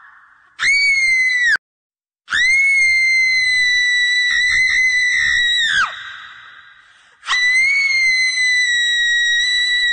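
Three long, shrill screams held at a high pitch. The first is cut off abruptly after about a second, followed by a moment of dead silence; the second lasts over three seconds, wavers midway and slides down in pitch as it dies away with an echo; the third begins past halfway and is still going at the end.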